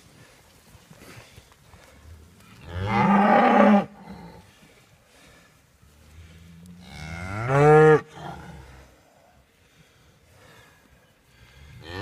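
A calf with a broken leg bawling twice, the second call rising in pitch, with another call starting at the very end: cries of pain as its injured leg is handled.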